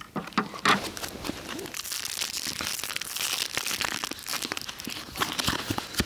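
Plastic food packaging crinkling and rustling as it is handled, with many small crackles.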